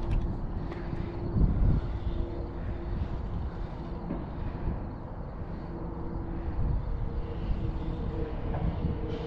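Wind rumbling on the microphone in an uneven low roar. Two faint steady hums run underneath, growing a little stronger in the second half.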